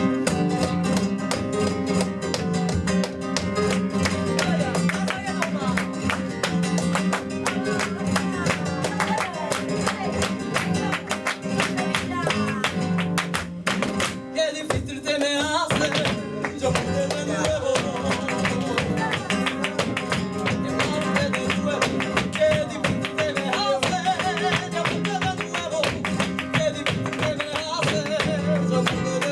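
Live flamenco Sevillanas: a flamenco guitar playing, cut through by many sharp percussive strikes throughout, with a cante singer's voice coming in about halfway.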